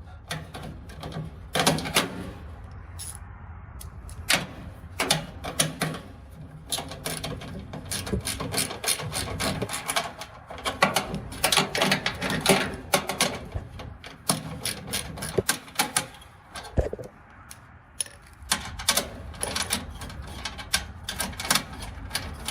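Irregular clicking and clattering of metal dryer parts being handled and shifted by hand, dense and uneven throughout.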